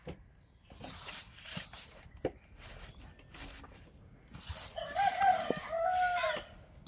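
Hands kneading wheat-flour dough in a steel bowl, giving soft rustles. About five seconds in a rooster crows once, for about a second and a half, louder than the kneading.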